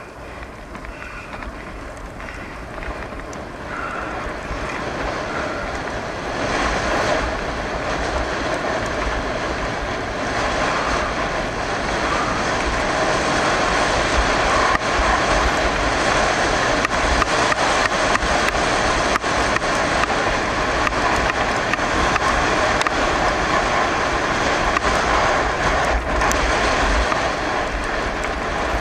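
Bicycle rolling fast on wet asphalt: a steady hiss and rattle of tyres and bike, with wind rumbling on the microphone. It grows louder over the first half as the bike picks up speed.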